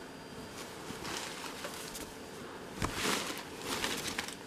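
Rustling of a long, thick-fabric dress being lifted and spread out by hand: a few soft swishes, with a dull bump just before three seconds in.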